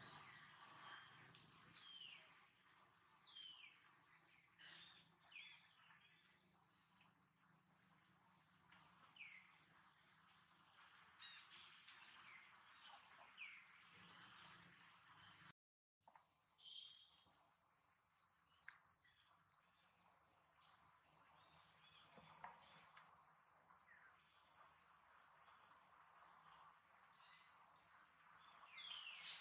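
Faint insects chirping in a steady, even pulse several times a second, with occasional short falling bird chirps over it. The sound drops out completely for a moment about halfway.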